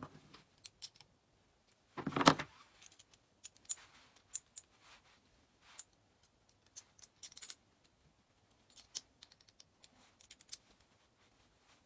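Scattered small clicks and clinks of a screw and lock nut being worked by hand into a small bracket, with one louder knock about two seconds in.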